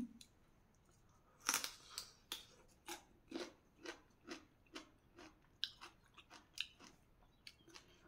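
Biting into a raw Chinese celery stalk, a sharp crunch about one and a half seconds in, followed by crunchy chewing at about two chews a second.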